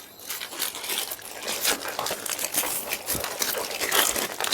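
Packaging being crinkled and rustled by hand as a parcel is opened: an irregular run of crackly rustles.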